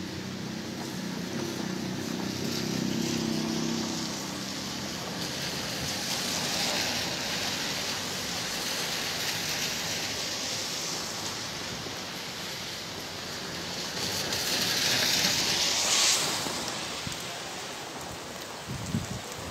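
Heavy rain falling steadily, with vehicles passing on the wet street. A low engine hum shows in the first few seconds, and the hiss swells twice: once about a third of the way in, and more loudly near the end before cutting off sharply.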